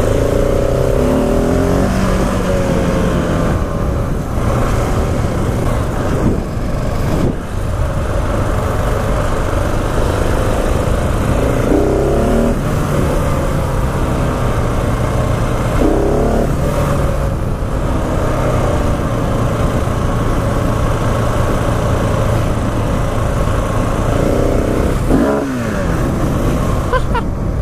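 Single-cylinder engine of a 2016 KTM 690 Enduro R motorcycle running under way, its revs rising and falling several times as the rider accelerates and backs off.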